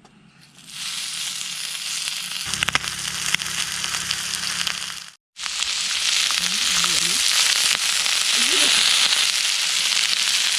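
Meat frying in a hot pan, a steady loud sizzle with a few spitting pops of fat. It cuts out for a moment about halfway and comes back louder.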